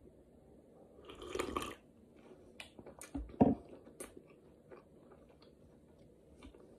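A sip slurped from a ceramic mug about a second in, then scattered wet mouth clicks of chewing, and one sharp knock near the middle as the mug is set down on the table.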